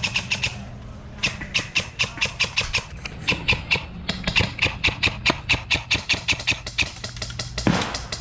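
Airsoft gun firing rapid shots, about five or six a second, in three long strings with short breaks between them, over a low steady hum.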